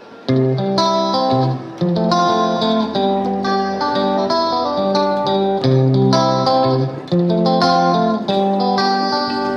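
Background music: a melody of plucked guitar notes over lower bass notes, starting just after a previous piece fades out.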